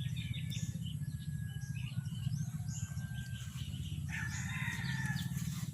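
A rooster crowing once, a held call from about four seconds in, over a steady low hum and faint scattered bird chirps.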